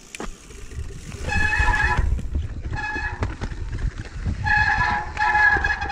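A mountain bike running down a dirt trail, its tyres rumbling, with a high-pitched whine from the bike that comes in three stretches, the longest near the end.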